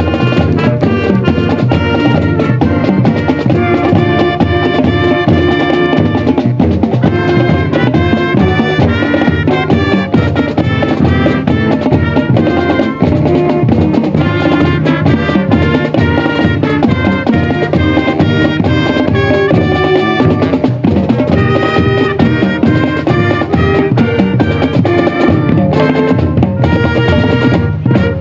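Marching band playing a tune: sustained horn notes over a steady drum beat, stopping at the very end.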